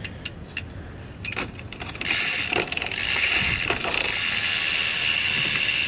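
Madera rear hub of a BMX bike freewheeling as the rear wheel spins: a few scattered clicks, then from about two seconds in a steady, fast ratcheting buzz from the pawls, which the rider calls really quiet.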